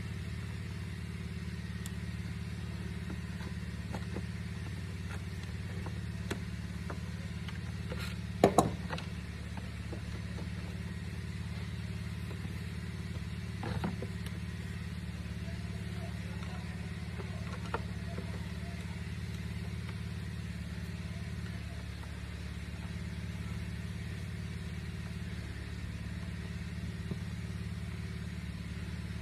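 A steady low hum with a few sharp clicks and knocks of small plastic parts being handled and fitted together, the loudest a double click about eight and a half seconds in.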